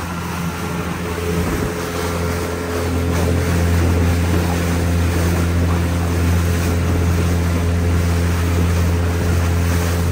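Motorboat under way: the engine drones steadily while water rushes and splashes along the hull. It all grows louder about three seconds in and then holds.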